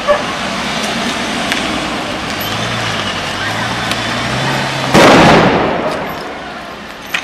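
Army vehicle engines running in the street, then a sudden loud blast about five seconds in that echoes and dies away over a second or two.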